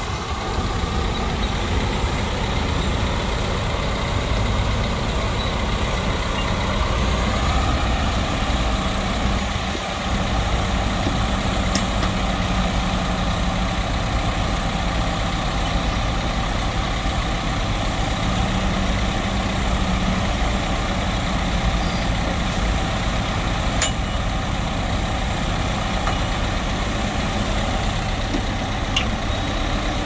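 Small Caterpillar crawler bulldozer's diesel engine running steadily as the dozer pushes soil, its engine note shifting slightly from time to time.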